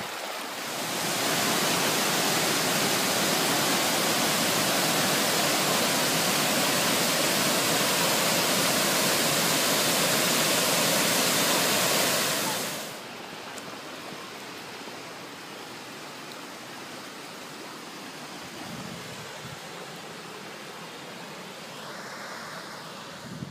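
Water pouring over a stepped stone weir on the River Wye, a loud steady rush of white water. About 13 seconds in it drops abruptly to the softer, steady rush of the river flowing, with the weir further off.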